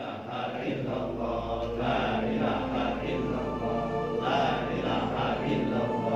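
A group of pilgrims chanting Islamic prayers together, many voices in a steady, continuous recitation.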